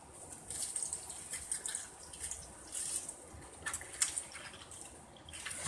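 Milk pouring from a plastic milk jug into a bowl of cornflakes, splashing and trickling unevenly onto the cereal.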